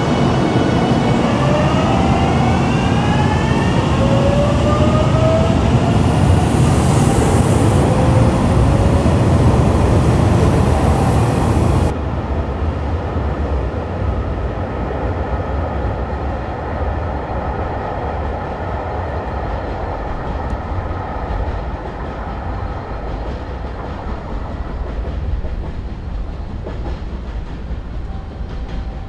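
Express train at a station. Several tones fall together in pitch over the first few seconds, over a loud low running rumble, and a high hiss comes in briefly about six to eight seconds in. About twelve seconds in the sound cuts abruptly to a quieter, steady train rumble with wheel clatter.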